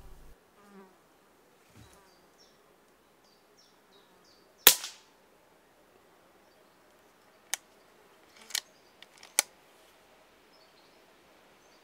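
A single shot from a Daystate Red Wolf pre-charged pneumatic air rifle about five seconds in, a short sharp crack. Three smaller sharp clicks follow a few seconds later.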